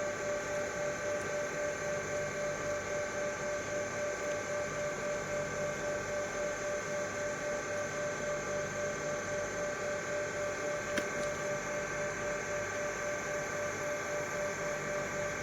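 Steady hum holding several fixed pitches, with a gently pulsing level, and a single short click about eleven seconds in.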